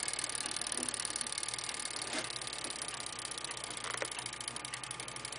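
Freshly serviced J. Kaiser birdcage clock movement running, its escapement ticking fast and evenly. A couple of faint knocks from the movement being handled sound about two and four seconds in.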